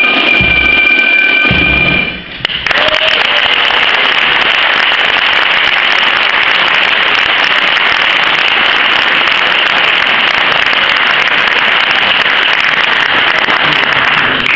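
A corps of fifes and drums ends its tune, the fifes holding their last notes over drum beats, which stop about two seconds in. Then steady audience applause.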